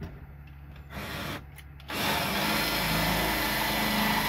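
Cordless drill drilling out a hole in the Jeep's body sheet metal. A short burst about a second in, then steady drilling from about two seconds in.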